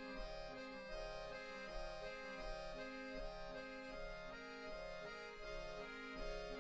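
Two accordions playing together in a repeating pattern of short held notes and chords that change several times a second.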